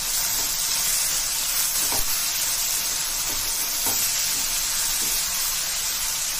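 Small onions (shallots) and tomato pieces sizzling in hot oil in a stainless steel kadai, a steady frying hiss, while a wooden spatula stirs them, with a few soft knocks against the pan.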